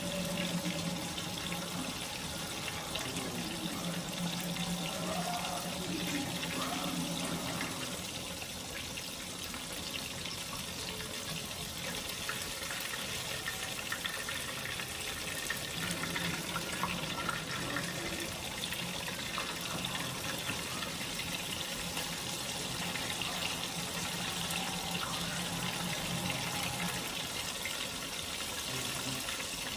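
Flour-coated white snapper frying in a skillet of hot oil: a steady sizzle.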